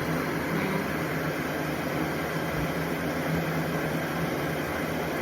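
Steady whir of cooling fans with a low electrical hum from a laser back-glass removal machine, just switched on and running.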